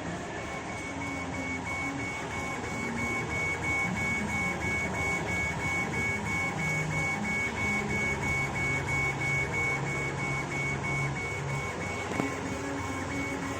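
CO2 laser engraver running a rotary engraving job: the stepper motors whine in low tones that shift pitch as the head and rotary axis move, over a steady hiss, with a high tone pulsing about two and a half times a second. There is a single sharp click near the end.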